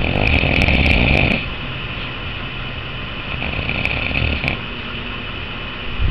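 Snoring: one long snore in the first second and a half, then a weaker snore around the fourth second.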